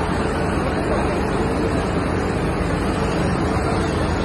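Fast-flowing muddy floodwater rushing past metal barricades and pillars: a loud, steady, unbroken rush of water.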